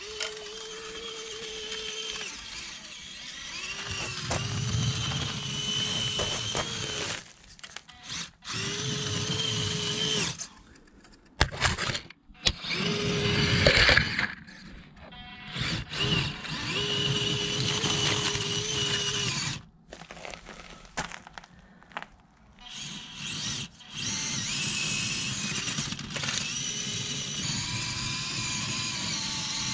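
Small brushed electric motors and gearboxes of micro RC crawlers whining at a steady crawl, in stretches of a few seconds that stop and start with the throttle. Around the middle comes a louder clatter of tyres and chassis on gravel.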